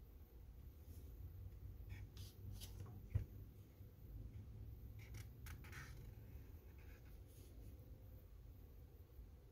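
Faint scratching of a marker tip on paper in short strokes as letters are written, with one low thump about three seconds in.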